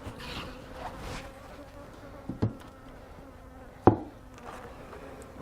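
Honey bees buzzing as a steady hum from a full colony at home in an opened hive. Two sharp knocks come about two and a half and four seconds in, the second one louder.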